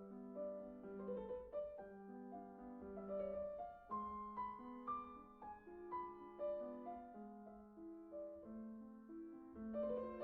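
Background music: a solo piano playing a classical sonata movement at a moderate tempo, a steady stream of notes.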